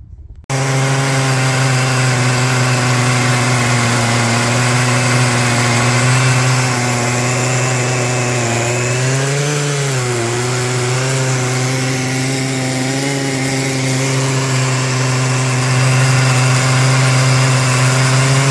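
Stihl MS880 two-stroke chainsaw running steadily while ripping a slab along a large oak trunk in an Alaskan chainsaw mill with a 64-inch bar. It starts abruptly and holds a steady high engine note, and its pitch dips briefly about halfway through before recovering.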